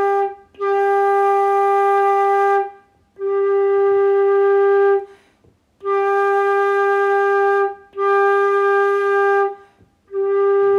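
Concert flute playing a series of long tones on the same note, about six in all, each lasting around two seconds with a short breath gap between them. The tone colour shifts from note to note between an airy, spread, unfocused sound and a focused, brighter, more ringing one, a demonstration of flute tone colour.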